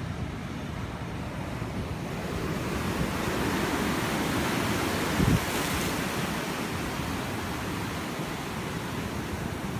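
Ocean surf breaking and washing in white water below, a steady rush that swells in the middle, mixed with wind on the microphone; a brief low thump about five seconds in.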